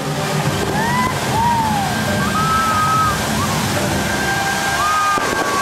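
A large fountain's water jets rushing and splashing down steadily, with sliding whistle-like tones over it.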